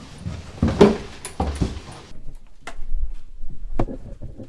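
Footsteps thudding and knocking down a narrow wooden staircase and onto a floor, in irregular steps. A background hiss cuts off suddenly about two seconds in.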